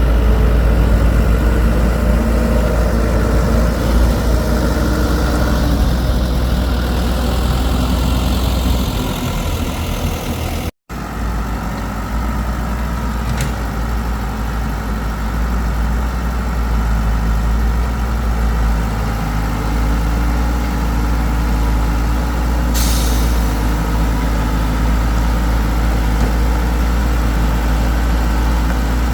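Excavator diesel engine running steadily with a deep low rumble. It cuts out for an instant just before halfway, and a short hiss comes near the end.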